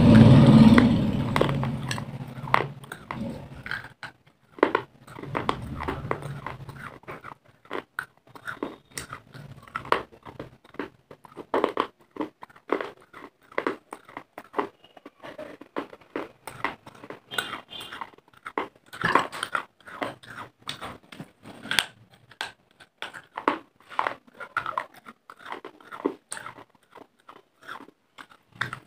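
Close-miked chewing of baked clay pot pieces: many sharp, irregular crunches as the brittle clay is ground between the teeth. It opens with a loud low rumble that fades over the first couple of seconds.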